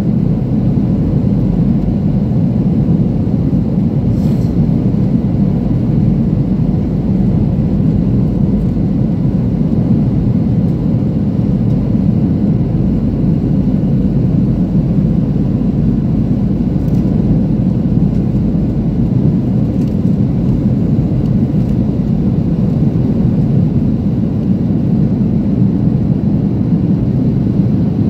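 Steady low roar of a Boeing 737-700's engines and airflow, heard inside the passenger cabin, with a faint steady hum under it.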